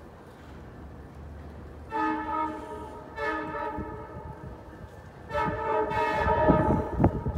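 Long Island Rail Road train's multi-note horn sounding three blasts, the last the longest, as the train approaches. Toward the end the low rumble and clatter of the arriving train grows under the horn.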